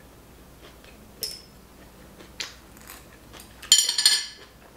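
Eating utensils clinking against dishes: a few single ringing clinks, then a short burst of clattering near the end, the loudest.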